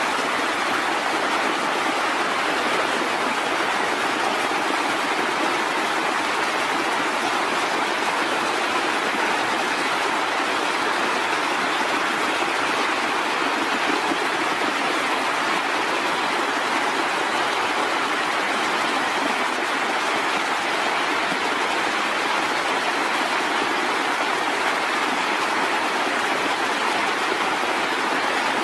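Steady, even rush of flowing water, like a fast stream, with no breaks or changes.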